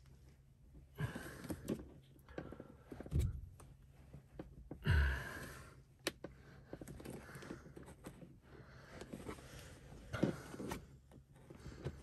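A plastic trim removal tool clicking and scraping as it pries at a tight plastic interior trim panel, in short bursts with pauses. A louder knock and a sigh of effort come about five seconds in.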